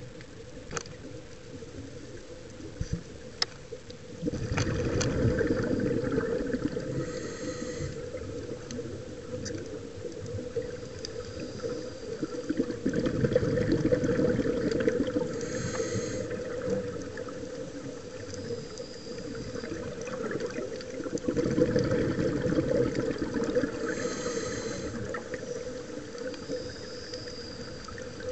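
Scuba breathing through a demand regulator, heard underwater through the camera housing: three bursts of exhaled bubbles about every eight or nine seconds, with a short hiss of inhalation between each.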